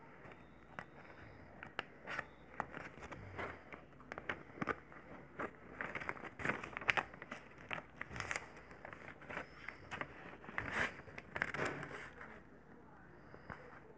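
A sheet of paper being handled and crinkled, with irregular rustles, scrapes and sharp clicks.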